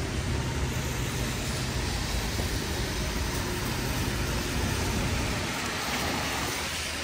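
Street traffic on a wet road: car tyres hissing on the rain-soaked asphalt over a steady engine rumble. The low rumble thins out near the end.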